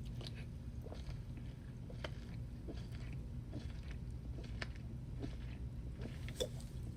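Close-miked chewing of steak: irregular wet mouth clicks and smacks, a few every second, over a steady low hum.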